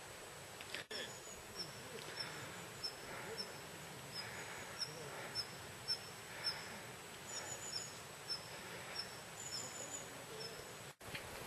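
Footsteps crunching on a gravel riverbed at an even walking pace, a little under two steps a second, over a steady hiss, with a brief dropout near the end.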